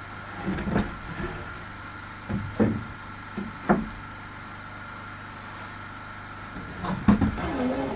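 Wooden knocks and clunks in a few scattered groups, over a steady low hum.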